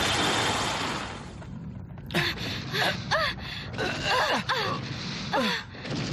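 A loud hissing rush from the monster's blue blast that dies away in the first second or so, followed by men groaning and gasping in pain in a string of short strained cries.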